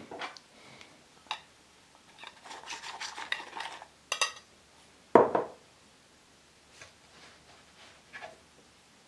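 A round metal scone cutter scraping in a bowl of flour and clinking against the bowl, with a ringing clink about four seconds in and a louder knock just after five seconds. A few soft taps follow near the end.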